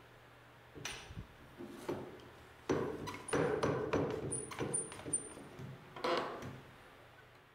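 Irregular knocks and clicks of hard parts being handled against a laser-cut steel plate, as a blue one-handed bar clamp is set on it, with a few faint high metallic pings in the middle.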